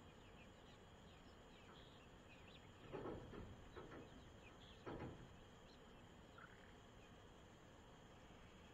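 Faint, steady high-pitched trill of crickets and other insects, with a few soft chicken peeps and two brief rustles of movement about three and five seconds in.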